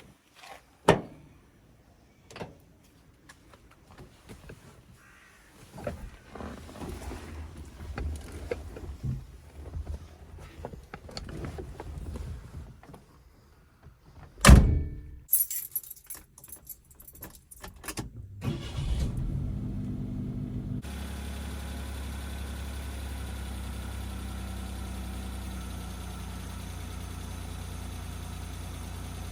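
Suzuki Jimny JA11 being got into and started: scattered clicks and rustling, a single loud thud of a door shutting about halfway through, a jangle of keys, then the small three-cylinder engine cranks, catches and settles into a steady idle for the last several seconds.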